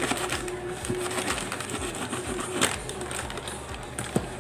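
Crinkling and rustling of a foil packet being cut open, with two sharp clicks, the louder one about two and a half seconds in and the other near the end.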